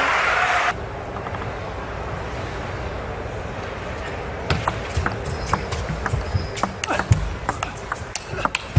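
Loud arena noise cuts off abruptly shortly in, leaving steady indoor arena ambience. From about halfway, a table tennis ball taps sharply on the table again and again before a serve.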